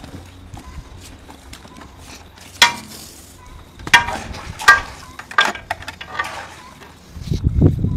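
A butcher's knife being honed on a steel: about five quick metallic scraping strokes, each with a short ring. Heavier low sounds of the work start again near the end.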